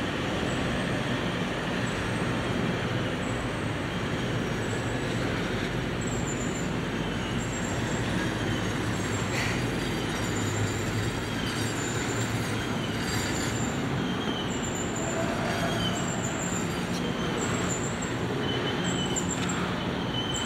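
Double-stack intermodal freight cars rolling past: a steady rumble of steel wheels on rail, with short high wheel squeals repeating about once a second from a few seconds in.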